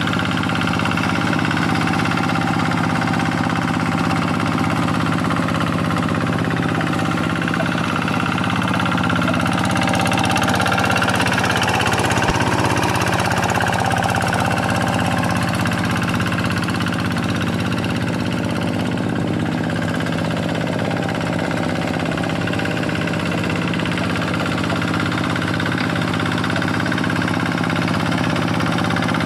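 Quick G1000 hand tractor's Kubota single-cylinder diesel engine running steadily while plowing a flooded rice paddy, swelling slightly in level and pitch about halfway through.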